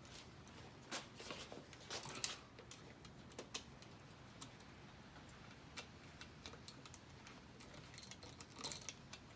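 Faint, irregular clicks and short scrapes of a screwdriver working at the screws of a wall light switch, in small clusters with quiet between.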